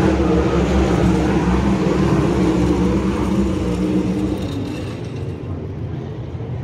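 A field of 410 sprint cars racing on the dirt track, a steady drone of engines that eases off after about four and a half seconds.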